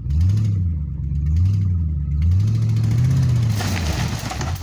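Pickup truck engine revving hard and easing off about three times while pulling on a strap tied to a shack. A harsh, crackling noise joins in over the last second or so.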